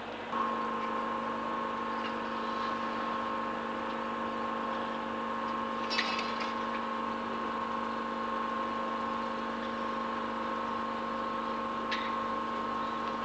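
Diesel locomotive running as it draws slowly into the platform: a steady engine whine held at one pitch, with two brief sharp high sounds about six seconds apart.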